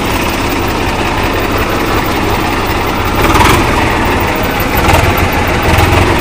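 A 1994 Swaraj 855 tractor's three-cylinder diesel engine running with a steady rumble. The sound swells briefly about halfway through and again near the end.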